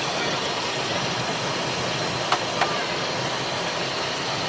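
Cessna Citation business jet cockpit noise during the landing rollout with speed brakes out: a steady rush of engine and air noise, with two short clicks about halfway through.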